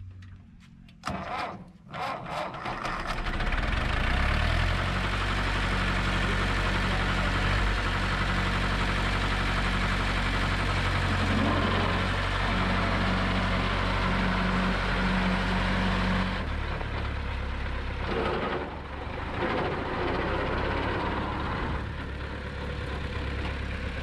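1954 MAN four-wheel-drive tractor's diesel engine starting about two seconds in, then running steadily. About sixteen seconds in its note changes as the tractor pulls away and drives off.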